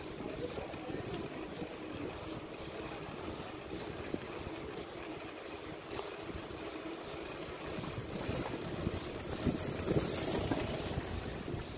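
Riding noise of a bicycle on a damp town street: tyre rumble on the asphalt and wind on the microphone, with a steady high hiss that swells about nine to ten seconds in.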